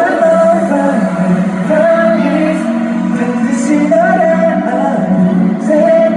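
Live pop song at a concert sound check: the group singing over an amplified backing track.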